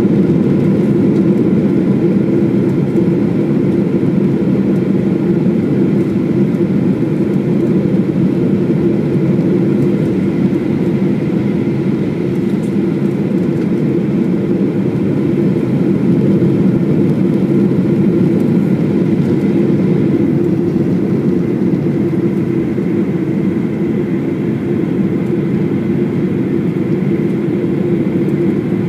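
Steady cabin noise of a jet airliner in descent, heard from a window seat over the wing. Engine and airflow noise sit mostly low, with a faint steady whine above it, unchanging throughout.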